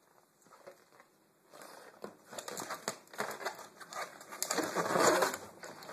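Irregular rustling and crinkling handling noise that grows to its loudest about five seconds in, after a second and a half of near silence.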